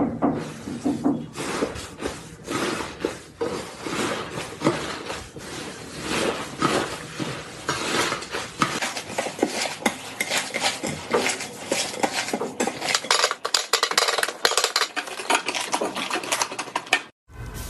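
Slime being worked, giving a dense, continuous run of wet crackling and popping clicks; it cuts off abruptly near the end.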